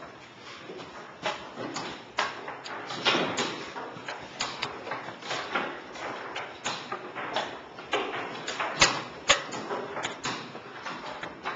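Chess pieces being set down on a board, sharp wooden clicks and knocks coming every half-second to second.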